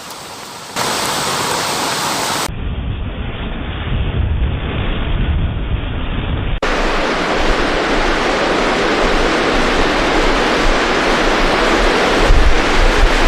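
Rushing floodwater, a steady loud noise made up of several spliced clips that change abruptly about one second in, again about two and a half seconds in, and again a little before halfway. The middle stretch is muffled, with a deeper rumble.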